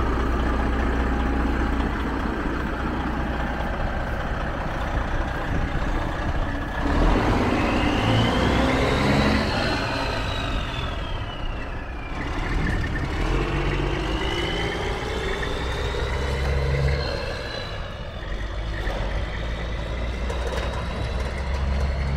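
Diesel engine of a Freightliner semi truck, steady at first, then opened up about seven seconds in as the truck pulls away with a loaded trailer; a turbo whine rises and falls twice, dropping away about halfway through and again near the end.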